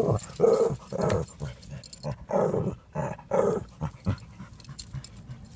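Lhasa Apso growling in a string of low, rough bursts, a cluster in the first second and another about two seconds in. Warning growls aimed at cattle across the fence, an attempt to intimidate them.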